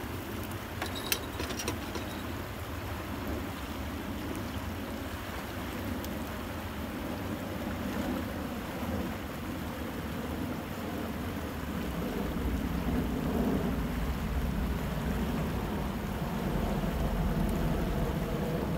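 Steady rush of a fast-flowing river current, growing louder after about twelve seconds, with a couple of sharp clicks about a second in.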